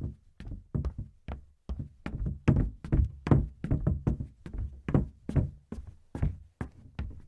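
Footsteps in shoes on a hollow wooden stage floor, a steady walk of about three steps a second. Each step lands as a knock with a low boom, and the steps are loudest in the middle of the stretch.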